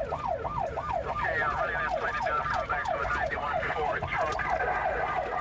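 Police car siren on the fast yelp setting, its tone sweeping rapidly up and down about three times a second, with vehicle engine and road noise underneath during a pursuit.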